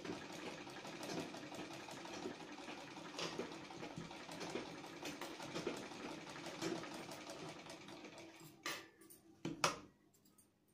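Black domestic straight-stitch sewing machine running steadily, stitching the neckline of a kurta through layered cotton fabric. It stops near the end, followed by two sharp knocks.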